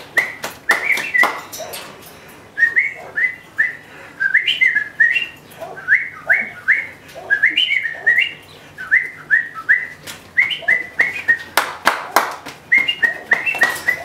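Rhythmic whistling in short notes, each sliding quickly up in pitch, in phrases of a tune, with bursts of hand clapping in the first second and again about twelve seconds in.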